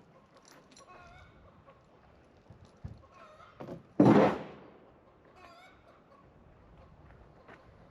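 Chickens clucking in short calls, with one loud, sharp noisy burst like a thump about four seconds in.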